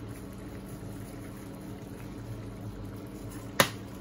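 Pork in coconut milk simmering in a frying pan, a steady low bubbling with a faint hum underneath. A single sharp click sounds about three and a half seconds in.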